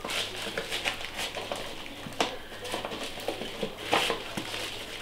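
Plastic packaging crinkling and rustling in the hands as a parcel is unwrapped, with irregular small crackles and clicks.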